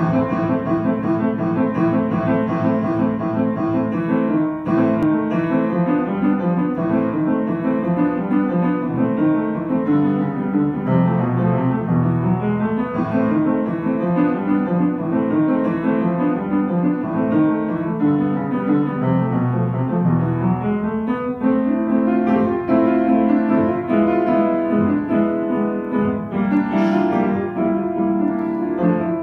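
Upright piano being played: a steady run of notes in both low and high parts, with no pauses.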